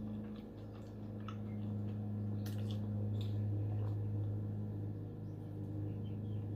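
Lawnmower engine running with a steady low drone that swells a little midway, under faint wet chewing and mouth clicks.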